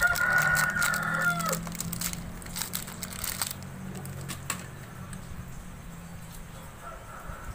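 A rooster crowing once: a held call about a second and a half long that drops in pitch at the end. A few light clicks follow.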